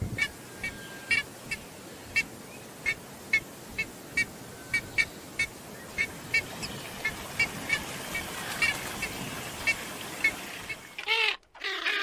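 A scarlet ibis giving short, sharp honking calls, about two a second at an irregular pace, over a steady background hiss. Near the end these give way to a gull's longer calls, which rise and fall in pitch.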